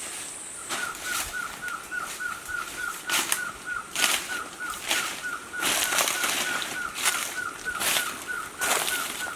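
An animal's short chirping call repeated evenly about four times a second, starting just under a second in, over irregular rustling and crunching bursts in forest litter.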